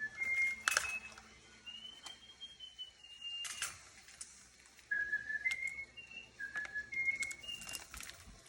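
A tune whistled in clear, held notes that step up and down in pitch, with one slow rising-and-falling note near the middle and a few sharp clicks between the notes.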